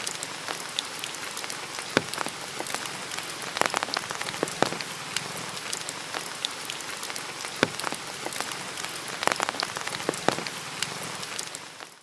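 Steady rain falling, with many separate drops striking close by as sharp ticks over an even hiss; it fades out at the very end.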